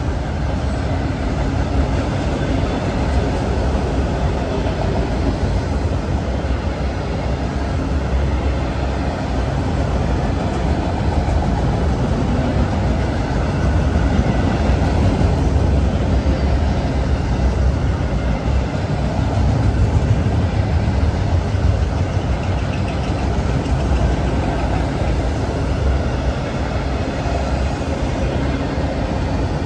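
CSX manifest freight train rolling past, a steady heavy rumble of its cars on the rails that swells slightly now and then.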